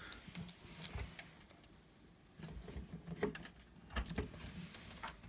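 Scattered light clicks and low knocks of hands handling equipment and speaker cables. It is faint for the first couple of seconds, then comes a run of clicks and thumps, the loudest knock about four seconds in.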